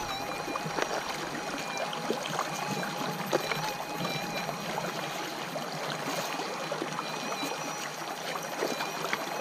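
Creek water running steadily, with gravel and small stones being scraped and pushed by hand across the top of a log, giving scattered small clicks and rattles. Underneath runs the faint steady threshold tone of a Minelab SDC 2300 gold detector.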